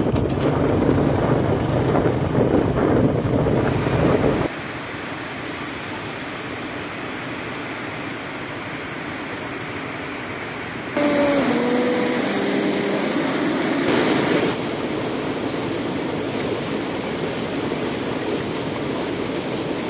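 Motorcycle riding along a road with wind on the microphone, cutting off after about four seconds to the steady rush of a rocky river. About halfway through, a short run of stepped, falling tones sounds over a louder stretch of the rush, and the end is the steady rush of river rapids.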